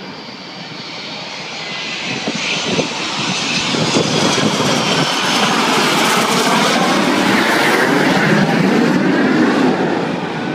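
Jet engines of the Boeing 747 Shuttle Carrier Aircraft, with the space shuttle on its back, passing low on its landing approach: a loud, steady jet rumble that grows over the first few seconds, holds at its loudest as the plane goes by with a shifting, sweeping tone, and eases slightly near the end.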